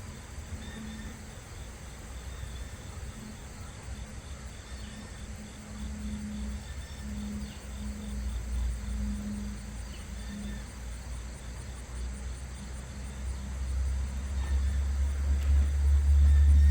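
Insects chirping steadily outdoors, over a low rumble that grows louder toward the end.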